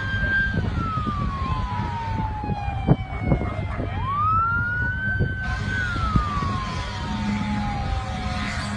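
Emergency vehicle siren wailing in slow cycles: the pitch rises quickly, holds briefly, then falls slowly over about three seconds, starting again about four seconds in. Under it runs a steady low rumble, with a sharp knock about three seconds in.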